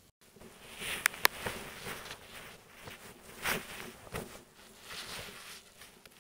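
Handling noise picked up by a tablet's built-in microphone: two sharp clicks about a second in, then scattered rustling and soft knocks.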